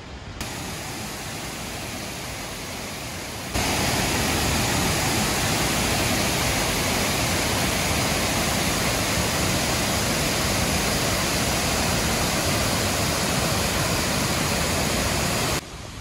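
Steady rushing roar of a large waterfall. It jumps louder about three and a half seconds in and drops back just before the end.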